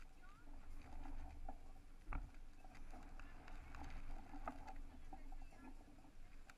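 Outdoor background: low, uneven wind rumble on the microphone with scattered faint clicks, and a single sharp knock about two seconds in.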